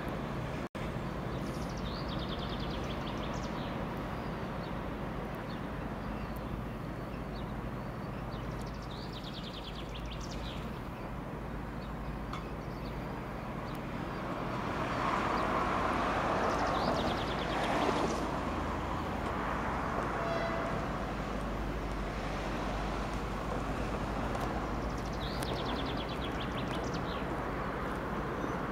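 TEP60 diesel locomotive's two-stroke V16 engine running with a steady low drone, growing louder for a few seconds in the middle. Short high bird chirps come through several times.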